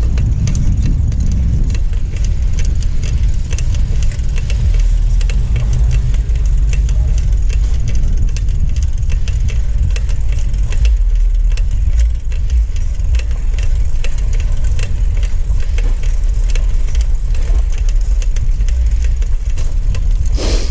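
Steady low wind rumble on the microphone while riding a bicycle along the street, with a constant patter of small clicks and rattles from the bike.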